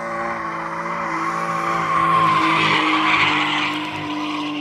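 A car drifting: the engine holds a steady note while the tyres squeal across the concrete. The tyre squeal swells to its loudest a couple of seconds in, then eases off near the end.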